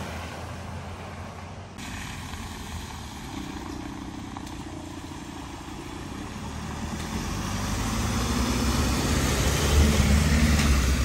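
Minibus engine running at low speed as it drives through a flooded ford, growing louder as it comes close in the last few seconds. Water rushes and washes around its wheels.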